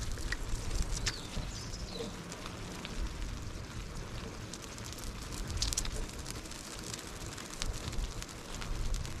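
Irregular crackling and crunching footsteps on the ground during a walk, with a low wind rumble on the microphone.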